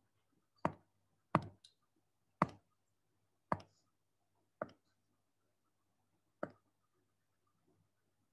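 Six sharp, short clicks at irregular spacing, made while drawing tools are being picked on a computer, over a faint steady low hum.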